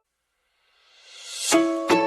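Background music: a silent gap, then a rising swoosh that leads into light plucked-string music, ukulele-like, starting about one and a half seconds in.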